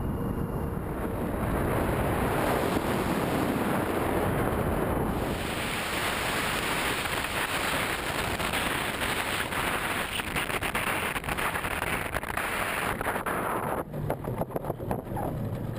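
Wind rushing over the onboard camera of a radio-controlled model jet in flight. About five seconds in, the sound changes to a brighter, steady rushing as a model jet rolls across grass onto asphalt. Near the end comes a run of quick knocks as the wheels run over the pavement.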